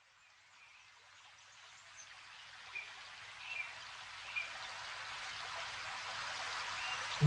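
Outdoor ambience fading in: a steady rush of running water with a handful of short bird chirps scattered through it.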